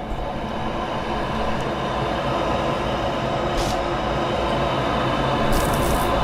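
York gas furnace, just refitted with a new heat exchanger, running with a steady rumble and low hum that grows louder. A few brief hissy ticks come about midway and near the end.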